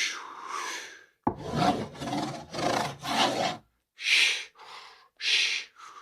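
A spoon scraping across a cardboard box in a series of short strokes, as if writing on it.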